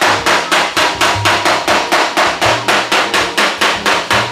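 Steel body hammer making nice, firm little taps on the welded sheet-metal seam of a Chevelle body panel, a steady run of about four sharp taps a second. The tapping knocks down a high spot that panel fitting and the welding raised in the metal.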